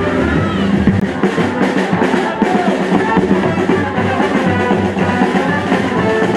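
Medieval-style street band of wind instruments and drums playing music as it marches.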